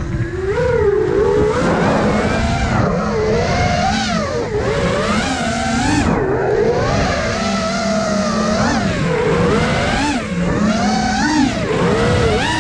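Brushless motors and propellers of an iFlight Nazgul Evoque F5 five-inch FPV quadcopter, heard from its onboard camera: a whine of several tones that rises and falls in pitch again and again as the throttle changes, over a steady rush of air.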